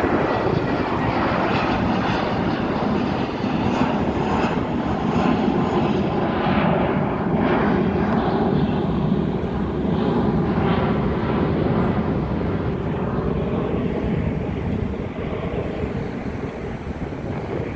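Airliner jet engines running loud and steady, easing off slightly near the end.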